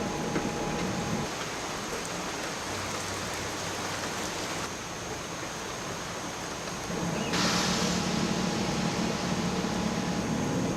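Steady hiss of heavy rain during a thunderstorm, growing louder and brighter about seven seconds in.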